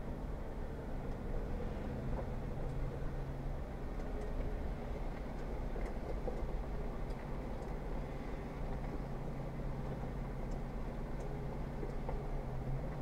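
Jeep Wrangler Rubicon engine running at a steady low crawl on a rough dirt trail, heard from inside the cabin, with the drone of the drivetrain and tyres and a few faint clicks and rattles.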